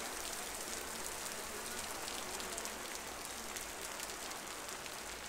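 Downpour on a street: a steady hiss of heavy rain with the close patter of countless individual drops hitting the pavement.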